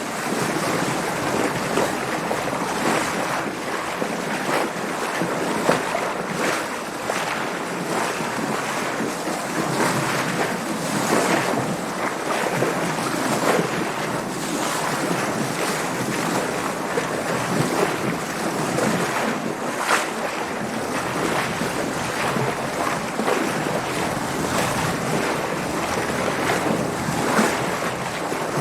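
Water splashing and sloshing against a sailboat as it moves through waves, with wind. It is a steady rush broken by frequent short splashes.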